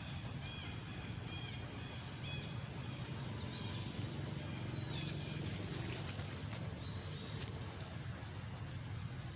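Forest ambience: birds giving short high chirps again and again over a steady low rumble.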